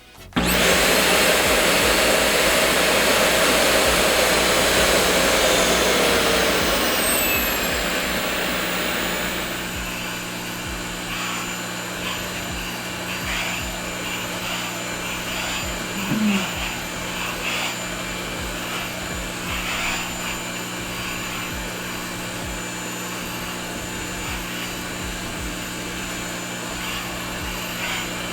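An all-in-one pet grooming vacuum and hair dryer switches on abruptly and its motor runs loudly. About six seconds in, its pitch falls and it gets quieter, then it runs steadily at the lower speed.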